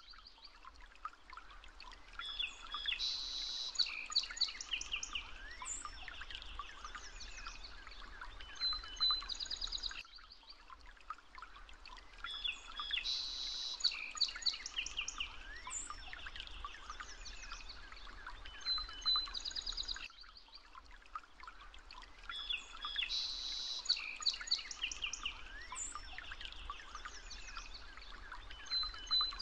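Birdsong: several birds chirping and trilling over a faint hiss. The same ten-second stretch of birdsong repeats three times, as a loop.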